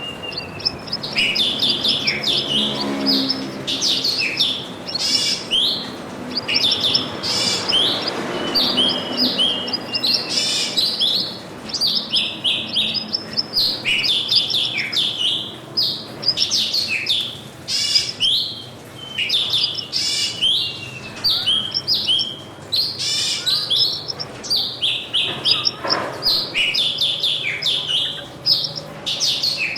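Small songbirds chirping busily, a dense run of short, quick, overlapping chirps that never lets up.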